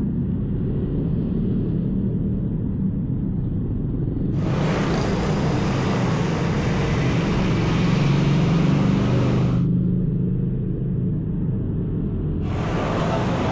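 A steady low motor hum. A broad hiss cuts in abruptly about four seconds in, stops about five seconds later, and comes back near the end.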